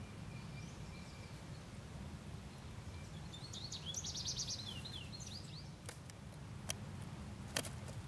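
Steady low rush of water from a small runoff waterfall, with a bird's quick series of high chirps and short gliding notes about halfway through, and three sharp clicks near the end.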